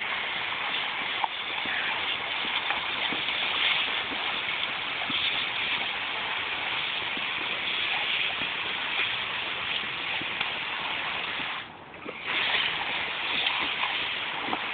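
Water spraying from a garden hose's spray nozzle in a steady hiss, splashing against a Leonberger's muzzle as it drinks from the stream. The spray cuts out for about half a second toward the end, then starts again.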